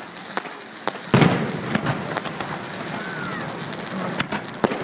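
Fireworks going off: one loud bang about a second in, with a rumbling echo, then scattered smaller pops and crackling.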